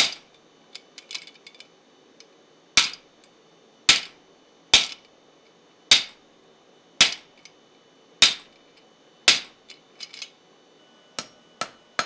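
Hand hammer striking the top die of a guillotine fullering tool on the anvil, fullering a hot railroad spike at the edge of its twist: heavy blows about once a second, each with a metallic ring. Near the end the blows come quicker as the hammer works the hot steel directly on the anvil.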